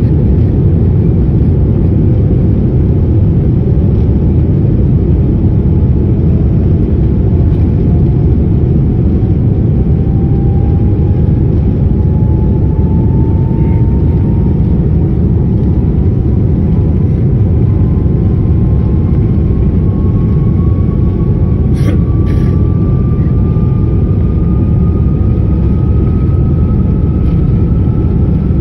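Jet airliner's engines and runway rumble heard inside the cabin: a loud, steady roar with an engine whine slowly rising in pitch as the airliner builds speed for takeoff. Two short clicks about three-quarters of the way through.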